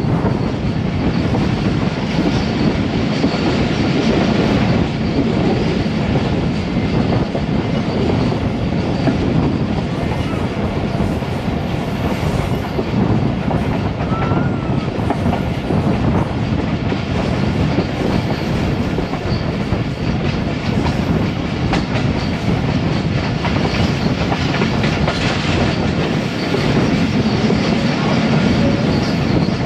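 Steady rumble and clatter of a Pakistan Railways passenger train's wheels on the rails as it runs along the line, heard from beside the coach.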